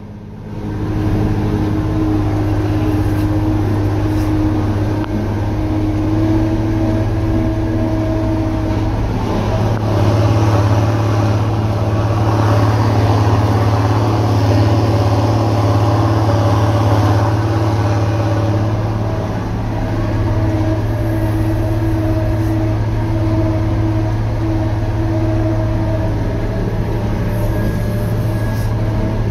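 New Idea Uni-System combine running steadily, a loud, even engine and machinery drone with a constant hum.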